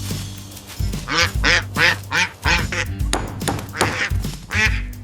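A quick run of short, squeaky, pitched animal-like calls, several a second in bunches, over background music with a steady low bass.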